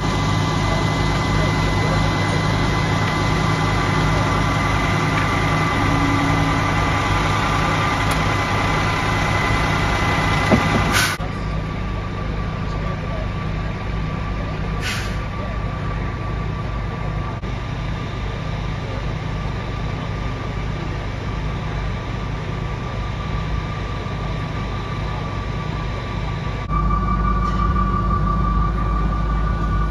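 Fire trucks' diesel engines running steadily at the scene, a constant low drone with a thin whine over it. It steps down abruptly about a third of the way in and comes back louder near the end.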